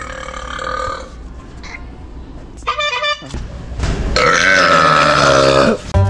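A long, loud burp from a man, lasting about two seconds and starting about four seconds in, its pitch sinking slightly. A shorter pitched sound comes just before it, about three seconds in.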